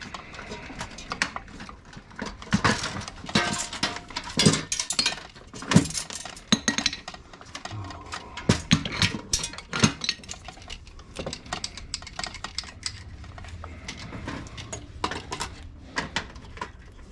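Irregular clinking and clattering of small metal parts and hand tools as electronics are taken apart for scrap, with many sharp knocks in quick succession.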